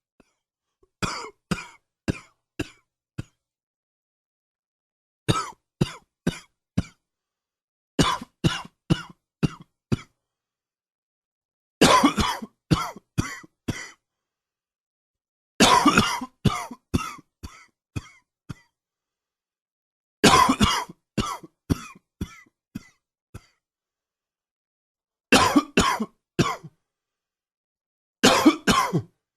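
A man coughing in repeated fits: about eight bouts, each of several sharp coughs in quick succession, with short pauses between. The coughing is put down to allergies.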